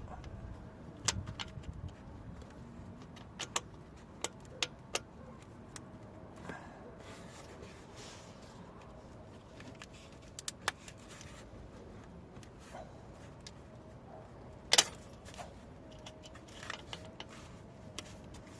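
Metal hand tools clinking and tapping on metal parts during starter motor removal: scattered sharp clicks and knocks, the loudest one about fifteen seconds in.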